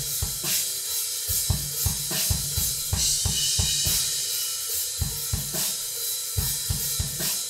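Background music: a drum-kit beat with kick drum and cymbals.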